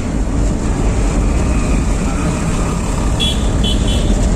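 Steady low rumble of the car's engine and tyres heard from inside the cabin while driving, with street traffic around it. A little after three seconds in come three short, high-pitched toots of a vehicle horn.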